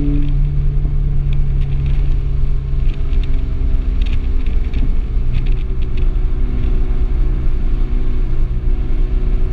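Volkswagen Golf R's turbocharged four-cylinder heard from inside the cabin at track speed, under heavy low road and tyre rumble. The engine note drops away just after the start and comes back as a steadier drone about halfway through.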